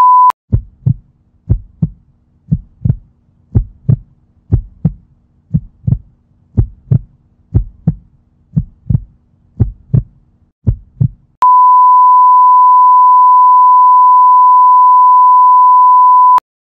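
A brief high beep, then a heartbeat sound effect: paired low thumps about once a second over a faint hum. About eleven seconds in the thumps stop and one continuous high beep sounds for about five seconds, a heart-monitor flatline tone marking the heart stopping.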